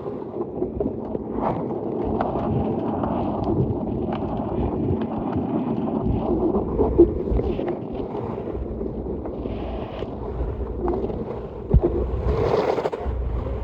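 Seawater sloshing and slapping against the wharf's underside and pilings, with many small knocks in the churning and a louder surge near the end. Wind buffets the microphone with a low rumble.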